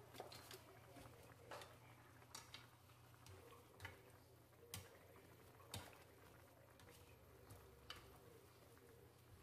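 Faint, irregular clicks of kitchen tongs knocking against a frying pan as rice noodles are tossed in broth, about eight in all, over a steady low hum.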